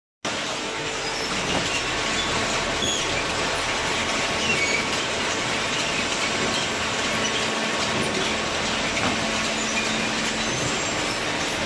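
Steady, even machine noise with a few faint steady hums in it, running without a break.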